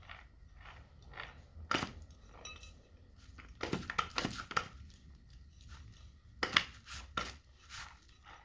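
Small two-forward, one-reverse gearbox being turned by hand, its gears clicking in an even rhythm of about two or three clicks a second. Louder metal clacks come about two seconds in, in a cluster near the middle, and again later, as the gear-shift lever is worked and the gears change.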